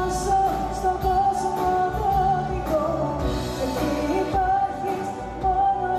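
Greek pop song performed live: a woman singing held, gliding notes into a microphone over band music with a steady beat.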